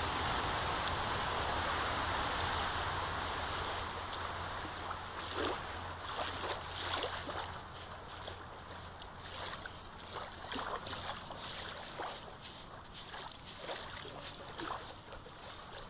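A German shepherd's front paws scraping and flinging sand in a steady rush of digging for the first few seconds, then in short, irregular scrapes for the rest.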